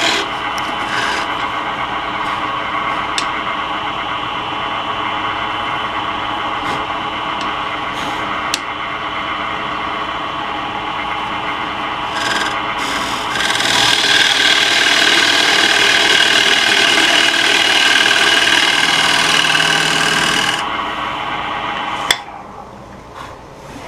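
Square-shank carbide turning tool cutting into the face of a wooden disc spinning on a Laguna Revo 12/16 wood lathe: a steady scraping cut over the running lathe as a recess is hollowed out. The cut grows louder for several seconds past the middle, then stops about two seconds before the end.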